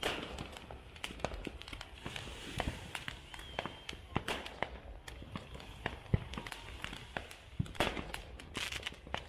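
Fireworks going off: a rapid, irregular series of sharp bangs and crackling pops, with heavier clusters at the start and near the end.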